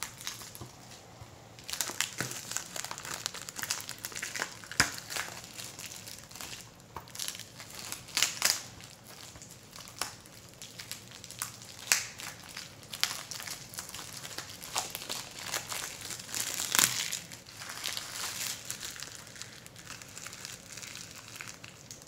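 Cellophane shrink-wrap being picked at and peeled off a plastic Blu-ray case: a long run of crinkling and crackling, with louder snaps several times.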